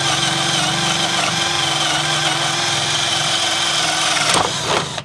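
INGCO CIDLI20025 20 V cordless drill driving a 35 mm Forstner bit through two-inch timber on speed setting 2, its motor whining steadily under load without stalling. The motor stops a little before the end.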